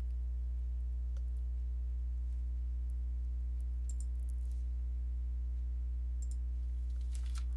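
Steady low electrical hum on the microphone line, with a few faint clicks about four seconds and about six seconds in.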